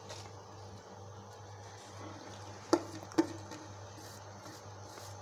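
Cooking noodles being tossed with a spatula in a metal pot: a faint steady hiss and hum, with two sharp knocks of the utensil against the pot about half a second apart, a little past the middle.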